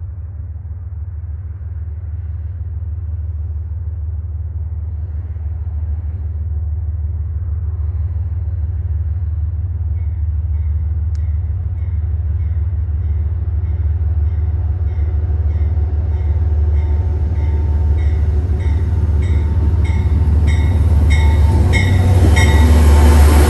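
Amtrak passenger train led by a GE Genesis diesel locomotive approaching: a low rumble that grows steadily louder. From about ten seconds in, the locomotive's bell rings about twice a second and gets louder as the train nears.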